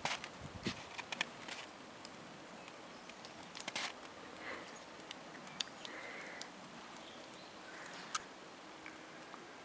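Scattered light clicks and soft crunching taps in snow as a small dog moves about, with a quick cluster at the start, another a few seconds in, and a single sharp tick near the end.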